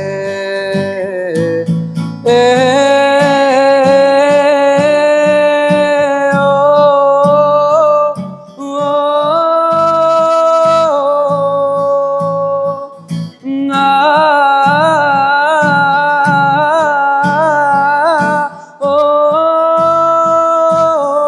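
Acoustic guitar strumming under a male voice singing long, wavering held notes in several phrases, with no clear words.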